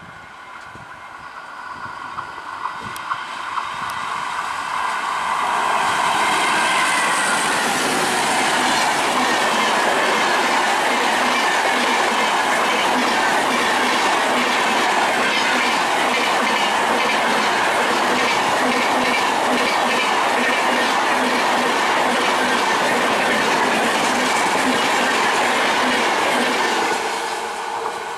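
An electric-hauled Indian Railways express passenger train approaches and passes close by at speed. The sound builds over the first few seconds, with a few sharp clicks, into a loud, steady clatter of coach wheels over the rails. It falls away near the end as the train recedes.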